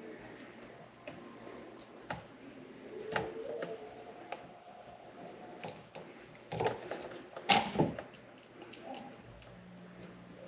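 Scattered light clicks and small knocks of wiring being fastened with zip ties, with a sharper snap about seven and a half seconds in.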